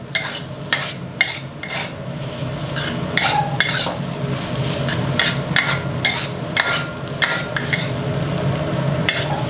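A metal spatula scrapes and clanks against a wok as chilled, cooked rice with egg and pork is stir-fried and broken up, with irregular strokes about one or two a second over a light frying sizzle.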